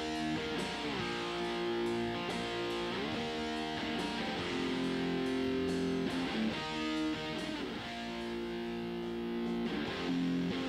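Recorded electric guitar playing a progression of held, strummed chords that change about once a second, played back through a compressor plugin emulating the Neve 33609, which gives the guitar a much older, vintage-sounding tone.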